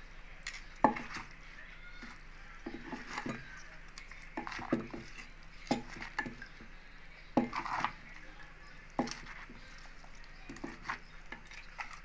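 Wooden pestle knocking in a wooden mortar and a metal spoon tossing shredded green papaya salad, in irregular knocks and light clinks about once a second.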